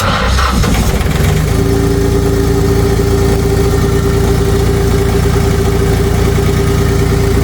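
Trailer's auxiliary engine running steadily, a constant rumble with a steady whine over it, now running after a wiring fault that had cut its fuel supply was fixed. It comes in abruptly with a short rush of noise before settling.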